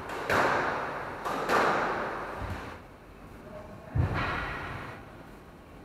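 Squash ball hits echoing around the court: a few sharp strikes a second or more apart, each ringing on and fading, with the heaviest thud about four seconds in.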